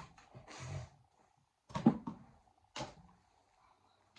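A few sharp knocks, the loudest about two seconds in, with a short rustle before it, over a faint steady hum.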